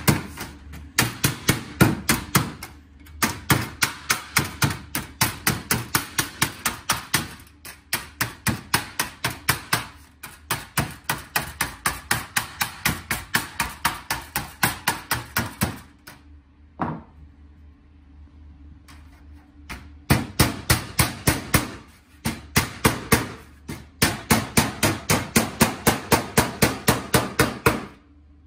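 Hammer blows on a folded sheet-metal seam, struck rapidly at about four to five a second in long runs. There is a pause of a few seconds past the middle with a single blow, then the rapid hammering resumes.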